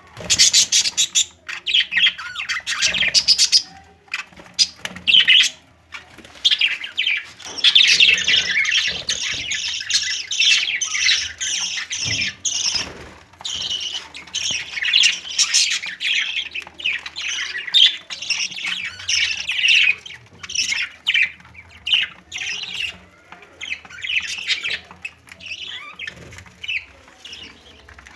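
Budgerigars chattering and squawking, a dense, busy stream of high, harsh calls broken only by brief pauses.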